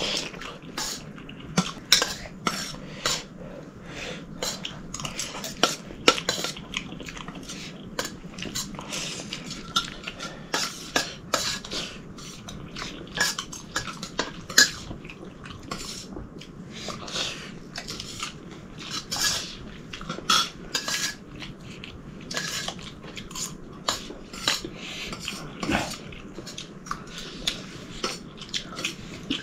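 Metal spoons clinking and scraping against stainless-steel plates during a meal, in frequent, irregular clicks.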